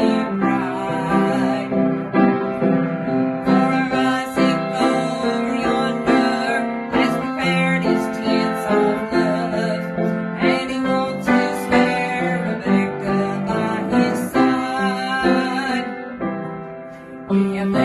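Piano-style keyboard playing a gospel song tune with a steady beat; the music drops away briefly near the end before picking up again.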